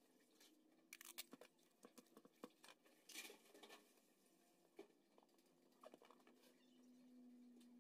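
Faint handling sounds of cardboard and clear packing tape: light taps and rustles as the cardboard panels are folded and pressed flat, with a short scratchy rustle about three seconds in. A faint low hum comes in near the end.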